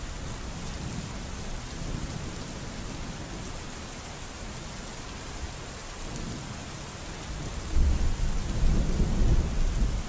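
Heavy rain falling steadily, an even hiss. About three-quarters of the way through, a loud low rumble rises under the rain and keeps going.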